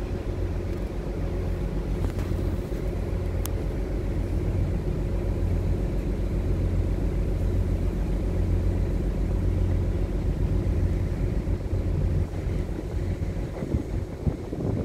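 Cargo ship's engine running steadily underway: a low, even drone with a steady hum.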